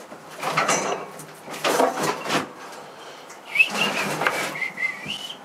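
Objects being shifted and handled: a few scraping, knocking bursts, then a high squeak about two-thirds of the way in that comes again, rising, near the end.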